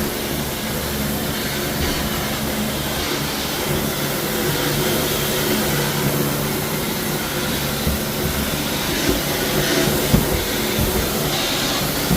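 Tile-cleaning pressure sprayer running steadily while cleaning travertine and grout: a constant machine hum under the hiss of the spray. A single short knock about ten seconds in.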